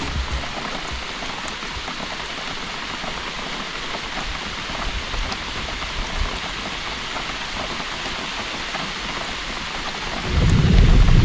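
Steady rain hiss. About ten seconds in, a loud low rumble suddenly comes in underneath it.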